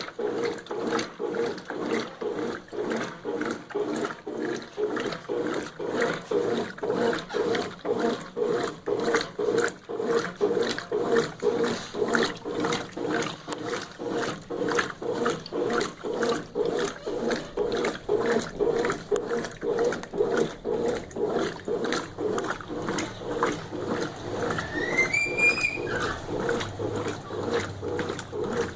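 Brastemp 11 kg top-loading washing machine agitating a load of jeans: the agitator swishes back and forth through the water in an even rhythm of about two strokes a second, with the motor and drive turning under it.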